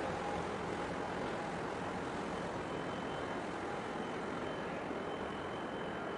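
Steady outdoor rumble and hiss with no distinct events, a faint thin high tone coming in about two and a half seconds in.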